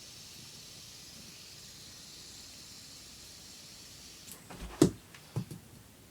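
Faint steady hiss of a fast-spinning chrome-steel fidget spinner. It cuts off about four seconds in, and a few short knocks and bumps follow, the loudest about five seconds in.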